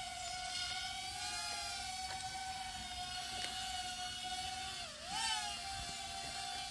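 Pluto 1.2 nano quadcopter's motors and propellers whining steadily in flight. About five seconds in the pitch dips and quickly rises again as the motors slow and speed back up.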